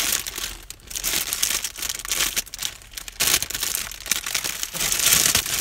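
Clear plastic wrapping crinkling and rustling in irregular bursts as plush dolls in their bags are handled and pulled out.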